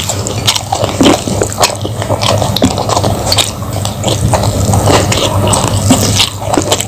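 Close-miked chewing of raw eggplant slices and rice eaten by hand: irregular wet mouth clicks and crunches, several a second, with fingers scraping and squishing rice on the plate.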